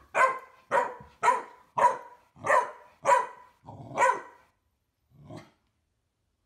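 Chihuahua barking at a bigger dog that is coming up to its bed: a run of about eight quick barks, nearly two a second, the last one fainter.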